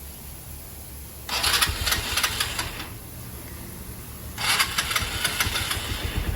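Lifan KP Mini 150's single-cylinder engine being electric-started: the starter cranks twice, about a second in and again about four seconds in, and the engine catches near the end and settles into a pulsing idle. The battery is dead, which the owner gives as the cause of the lights flickering.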